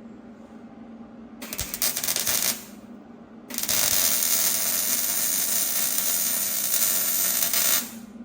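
Wire-feed (MIG) welder arc sizzling in two welds: a short, uneven burst about a second and a half in, then a steady bead of about four seconds that cuts off near the end, over a constant low hum. The welder runs through a 10-gauge extension cord, and its owner thinks it sounds as if the voltage needs turning up.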